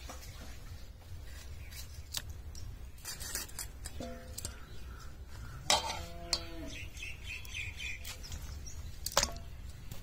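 Cut fish pieces handled in a steel bowl: scattered clinks and knocks against the metal, two of them leaving the bowl ringing briefly, about four and six seconds in.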